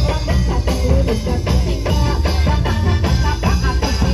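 Loud live Javanese gamelan-style music played for a dawangan dance: steady drumming over a heavy bass beat, with a wavering melody line above.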